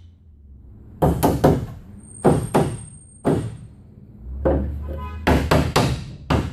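Wooden spacer block knocking against the plywood centerboard trunk while it is fitted into the trunk's slot to check the gap: sharp wood-on-wood knocks in quick clusters of two or three, about five clusters in all.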